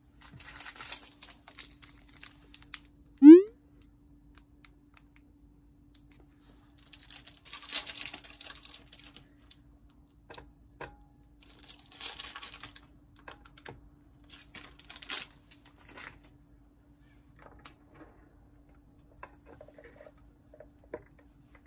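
Kitchen handling sounds: rustling in several bursts and small clicks and taps as pieces of rice cake are laid on the plates of an electric waffle maker and its lid is shut, over a faint steady hum. A short, fast-rising tone about three seconds in is the loudest sound.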